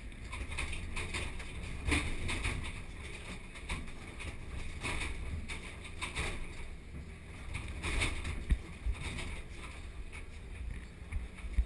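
Komatsu PC2000 hydraulic mining excavator heard from inside its cab: a steady low diesel engine rumble under load. Scraping and clattering swell up every second or two as the bucket digs into blasted rock.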